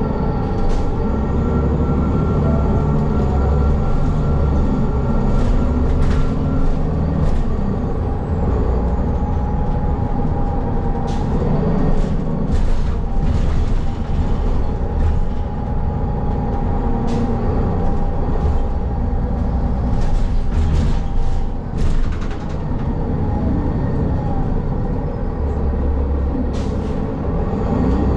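City transit bus in motion, heard from inside the cabin: a steady low engine and road rumble, with a faint whine and scattered rattles and clicks.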